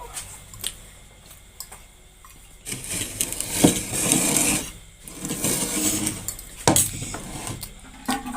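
Spicy instant noodles being slurped and eaten in two long noisy pulls, with utensils clicking sharply against the bowl a few times.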